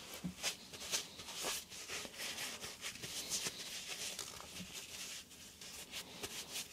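Faint handling noise: irregular light clicks and rubbing, a few every second, as parts and a rag are moved about by hand.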